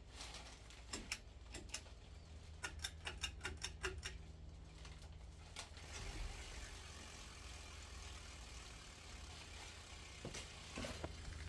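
A run of light mechanical clicks and rattles for the first five seconds or so, then a faint steady whir from about six seconds in as the ceiling fan runs.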